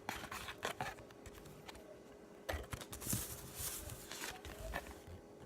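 Baseball trading cards being handled: scattered light clicks and short rustles of card stock, with a few louder rustles about halfway through.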